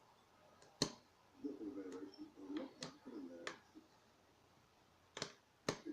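Sharp, irregular metal clicks of lock picks working a pin-tumbler rim cylinder, about six in all, the loudest about a second in and near the end, with low mumbling in between.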